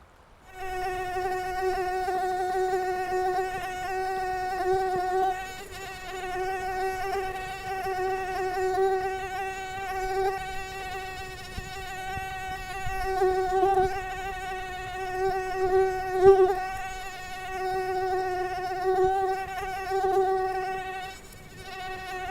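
Mosquito whining in flight: a steady, high buzzing tone from its wingbeat, with many overtones and a slight waver in loudness. It starts about half a second in and dips briefly near the end.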